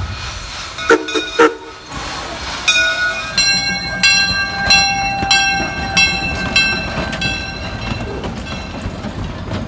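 Steam locomotive sounds: two short whistle blasts about a second in, then a long steam whistle held over a regular beat of about three sharp strokes a second that slowly fades.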